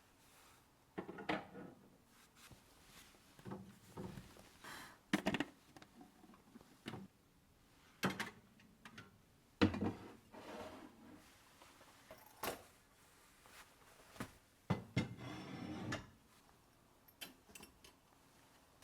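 Kitchen items being handled and put away: irregular knocks and clatters, drawers and cupboard doors sliding and closing, with a longer scrape or rustle near the end.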